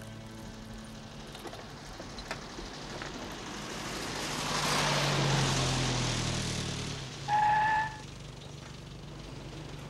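A car drives past, its engine and tyre noise swelling and then fading, followed about three-quarters of the way through by a single short, steady car-horn honk lasting under a second.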